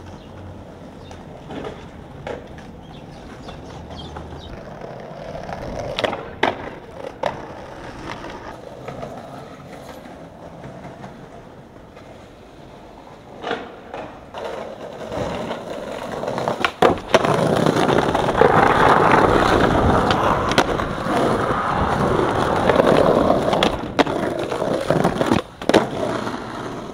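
Skateboard wheels rolling over pavement, with several sharp clacks of the board popping and landing. Loud, close rolling noise fills the second half.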